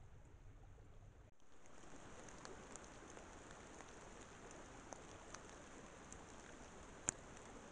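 Faint light rain dripping in woodland leaf litter: a soft steady hiss with scattered small drop ticks and one sharper tick near the end, coming in after a brief quieter stretch at the start.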